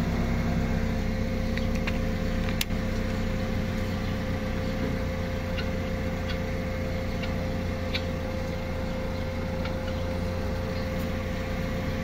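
A steady machine hum like an idling engine runs throughout. Over it come a few light clicks and scrapes as a long metal rod is pushed along the concrete under the car.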